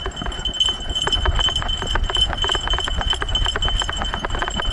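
Dog running hard on a dirt trail, heard from an action camera strapped to its harness: a rapid, rhythmic clatter of strides and rattling gear over a low rumble of jostling.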